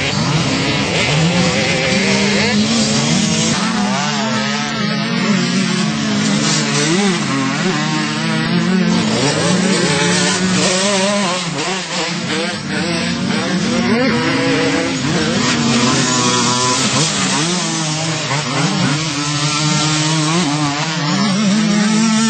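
Racing ATV (quad) engines revving hard, their pitch climbing and falling again and again as they accelerate and back off through the turns. At times more than one engine is heard at once.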